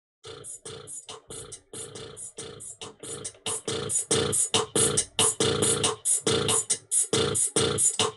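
Amazon Echo Show 8 (2nd generation) speaker playing Alexa's beatbox: a quick, steady rhythm of vocal drum sounds. It gets louder about three and a half seconds in.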